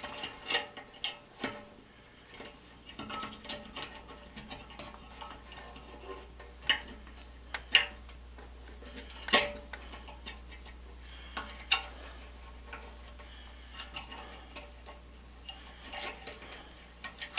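Irregular light clicks and taps of electrical wires and small metal parts being handled and tucked into an electrical box, with a few sharper knocks, the loudest about halfway through, over a faint low hum.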